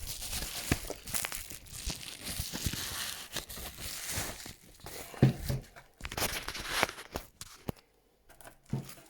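Packaging crinkling and rustling, with scattered small knocks, as a computer power supply is unwrapped. The sound dies away about seven seconds in.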